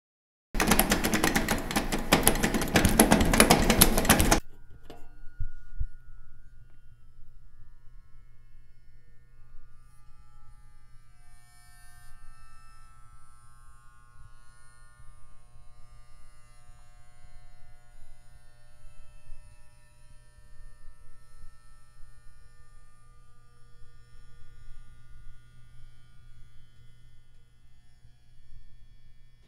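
A loud burst of crackling noise for about four seconds that cuts off abruptly, followed by a low steady hum with faint drawn-out tones above it.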